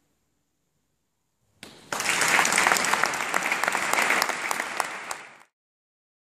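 Audience applauding. It starts after about a second and a half of silence and is cut off abruptly about a second before the end.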